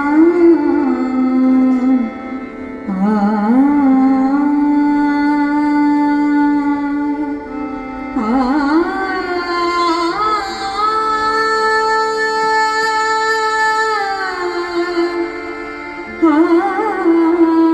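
A woman's voice singing a slow, wordless opening alaap in an Indian devotional style, with long held notes and sliding ornaments over a steady drone. No drums are heard yet.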